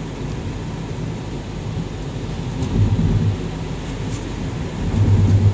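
Road and engine rumble heard from inside a moving car's cabin in the rain, steady and low, with two louder low swells about three seconds in and near the end.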